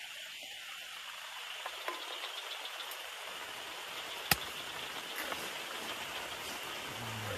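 Heavy rain falling, a steady hiss, with one sharp click about four seconds in.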